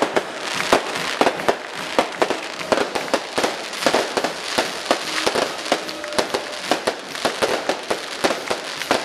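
A rapid, irregular run of firecracker bangs, several a second, in a festival firework barrage.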